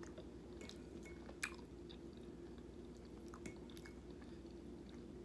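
Quiet close-up chewing of soft biscuits and gravy, with small wet mouth clicks scattered through, the sharpest about one and a half seconds in. A faint steady hum runs underneath.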